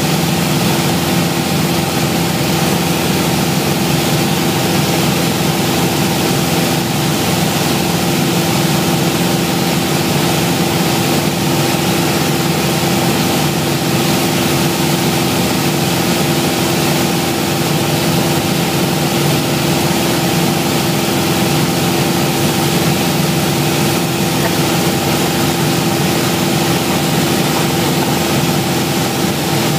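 Cabin noise of a Piper Warrior in flight: the four-cylinder Lycoming piston engine and propeller drone at a steady, unchanging pitch under a constant rush of air over the airframe, heard from inside the cabin.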